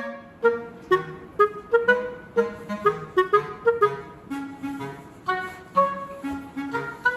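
Background music: a light tune of short, detached notes, about two to three a second, with a reedy woodwind-like melody.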